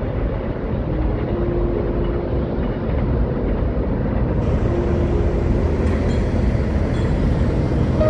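Steady low rumble of engine noise.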